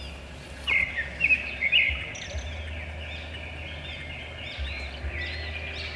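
Small birds chirping in a string of quick, high calls, loudest about a second in, over a steady low hum.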